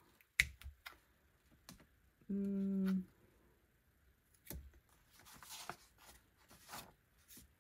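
Light taps and soft rustling of paper and a gelli plate being handled and a print lifted off, with a short hummed "hmm" from a woman about two and a half seconds in.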